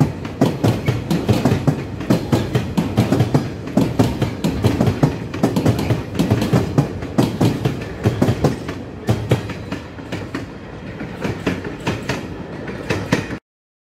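Freight train of self-discharging hopper wagons (Talbots) rolling past, wheels clacking rapidly over the rail joints. The clatter eases and gets quieter in the last few seconds as the end of the train goes by, then cuts off abruptly.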